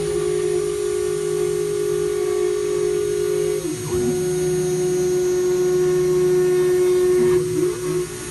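CNC router spindle spinning with a steady whine while not cutting into the wood, its pitch dropping slightly about three and a half seconds in.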